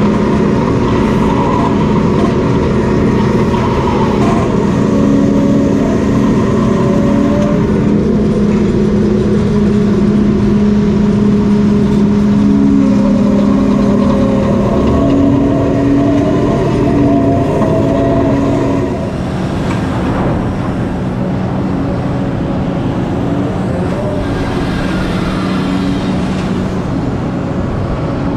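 Volvo EC950F mass excavator's diesel engine and hydraulics working under load as it digs and lifts a full bucket of earth, the engine note holding and shifting as the hydraulics take the strain. About two-thirds of the way through, the sound drops a little and changes character.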